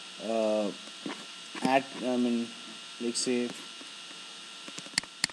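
A steady electrical hum with a few drawn-out hesitation sounds from a voice in the first three seconds, then two sharp clicks in quick succession about five seconds in.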